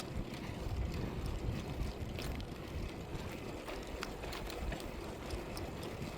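Wind buffeting the microphone while riding a bicycle: a steady low rumble with scattered small clicks and rattles.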